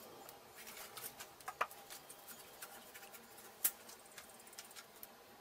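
Faint, scattered light clicks and taps, with two sharper clicks: one about a second and a half in, another a little past halfway.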